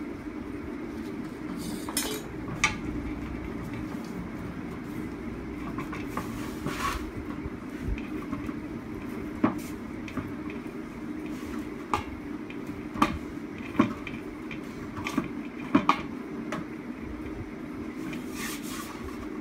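Hands kneading dough in a large metal bowl, with scattered sharp knocks and clinks against the metal, over a steady low hum.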